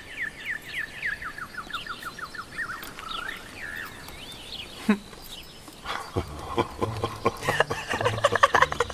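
Small songbird singing a fast trill of short, falling chirps, with a few curving whistles after it. From about six seconds in, two people burst into laughter, rhythmic bursts that build toward the end.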